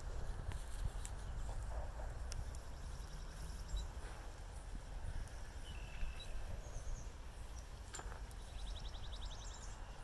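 Outdoor ambience of wind rumbling on the microphone, with scattered short bird chirps and calls and a rapid trill of repeated notes near the end.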